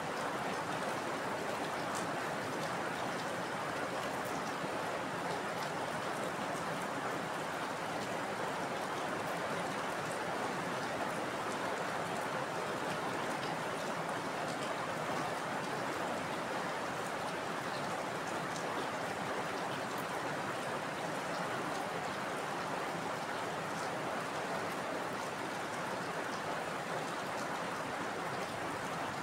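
Heavy rain falling steadily: an even hiss of rainfall with a few scattered drop ticks and no thunder.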